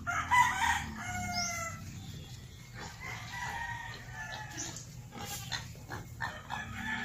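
A rooster crowing: one drawn-out call in the first second and a half, with fainter calls later. Scattered sharp clicks and knocks run under it.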